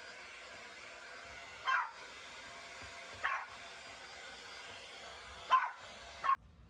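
Toy poodle barking in four short, sharp yaps over the steady whir of a running vacuum cleaner, which the dog dislikes. The vacuum cuts off abruptly near the end.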